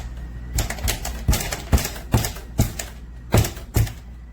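Plastic cat door flap pushed hard again and again and clacking against its latch, about ten sharp knocks in a row; the wider-peg latch holds the flap shut.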